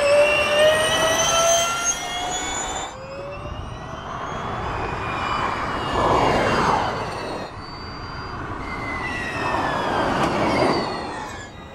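Porsche 99X Electric Formula E car's electric drivetrain whining, rising in pitch as it accelerates. The sound cuts off about three seconds in. Then come two drive-bys, around six and ten seconds in, each a falling whine over a rush of tyre and air noise.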